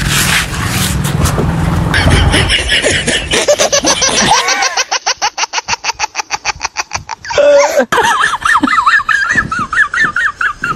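Street traffic noise, then a long run of rhythmic laughter starting about four seconds in, about five pulses a second, followed by high-pitched wavering laughter.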